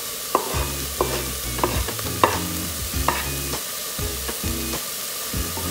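Ground beef frying and sizzling in a stainless steel pot as diced carrots are scraped in from a wooden chopping board, with about eight sharp taps and clicks spread through the sizzle.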